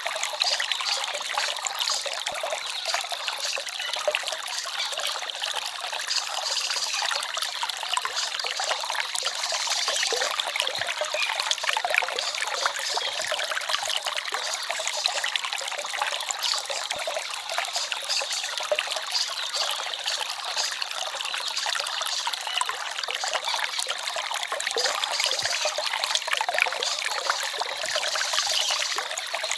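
Small forest stream trickling and babbling over stones, a steady flow of water.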